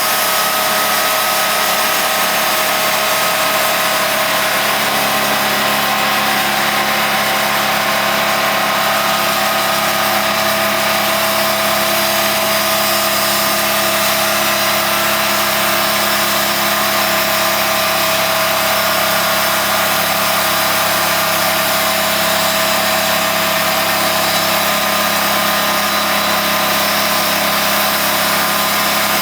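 Sawmill running steadily, sawing through a large mesquite log, with a constant engine hum and the noise of the blade in the wood.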